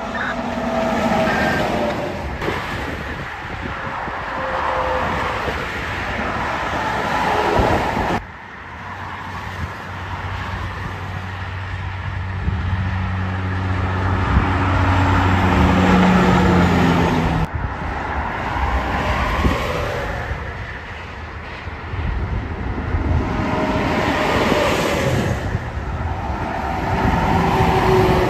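Highway traffic: diesel semi-trucks and cars passing one after another, tyre and engine noise swelling and fading, with truck engine tones falling in pitch as they go by. A truck engine's low drone runs strongly through the middle. The sound breaks off sharply twice.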